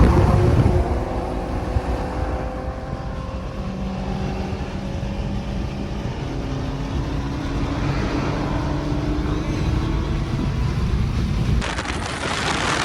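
Infiniti Q50 with test pipes in place of the catalytic converters, running on the road with a loud exhaust drone; the engine note holds steady and steps up in pitch twice, a few seconds in and again about halfway through.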